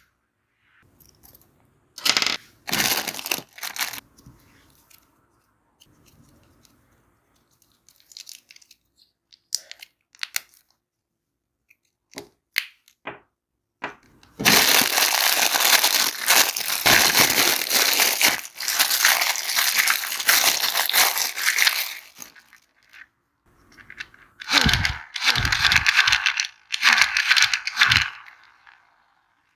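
Plastic candy wrappers crinkling and tearing as sweets are unwrapped, in several long crackling spells broken by a few sharp clicks.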